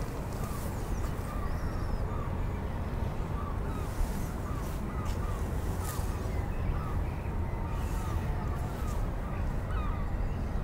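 A flock of crow-family birds calling over and over in short calls, one or two a second. A steady low rumble runs underneath, with a few sharp clicks.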